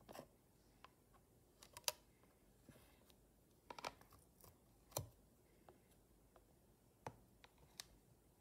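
Faint, scattered light clicks and taps, about a dozen, of a makeup applicator tapping and scraping in the pans and plastic case of an eyeshadow palette; the sharpest click comes about two seconds in and a duller knock about five seconds in.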